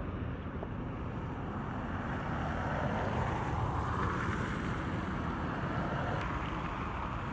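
Road traffic going by, with a steady low rumble of wind on the microphone; one vehicle swells and fades about four seconds in.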